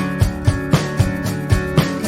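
Background music: an upbeat track with strummed guitar and a steady drum beat.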